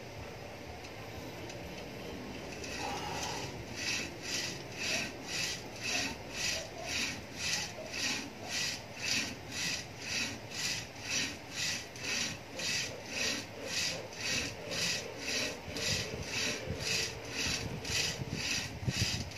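Rope of a hand-pulled rope exerciser rasping through its overhead ring with each alternating pull on the handles. It starts about three seconds in and goes on in an even rhythm of about two strokes a second.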